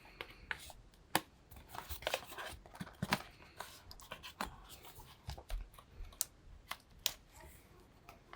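Cardboard smartphone box being opened and its card and paper packaging handled: scattered rustles, scrapes and light taps, with a few sharper clicks.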